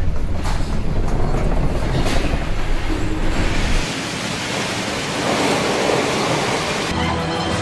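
Storm wind blowing over the microphone and heavy seas breaking against a ship's bow. A deep rumble gives way, about four seconds in, to a steady hiss of spray and rushing water.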